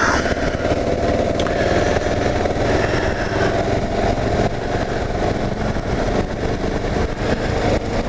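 2009 Kawasaki KLR 650's single-cylinder engine running steadily at cruising speed.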